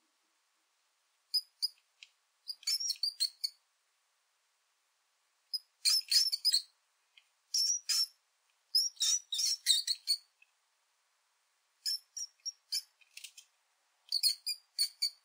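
High-pitched mouse squeaks in quick bursts of several chirps each, about seven bursts with complete silence between them.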